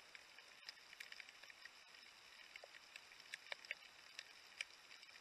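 Faint underwater ambience through a camera's waterproof housing: a steady hiss with scattered small clicks and crackles, bunched a little more in the second half.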